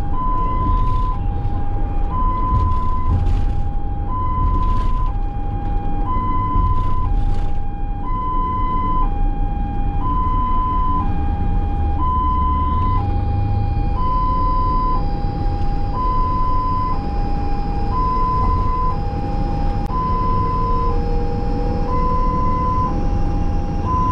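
Ambulance two-tone siren alternating between a high and a low note, about one cycle every two seconds, over the steady rumble of the vehicle's engine and road noise.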